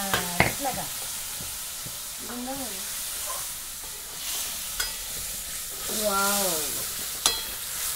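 Kheema (minced meat) frying with a steady sizzle in a steel kadhai, stirred with a steel ladle that clinks sharply against the pan a few times: near the start, around five seconds in, and near the end.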